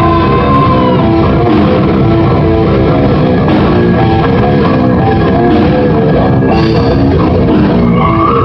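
Djent metal band playing live: distorted electric guitars over a drum kit, loud and steady, with a held high note near the start and again near the end. The live recording sounds harsh and poor.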